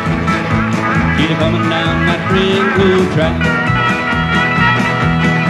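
Live country band playing an instrumental break, a steel guitar taking the lead with sliding notes over a steady bass and rhythm.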